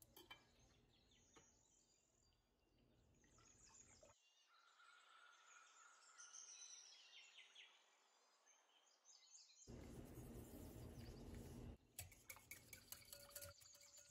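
Near silence with faint kitchen handling sounds; near the end, a wire whisk clicks quickly against a ceramic bowl.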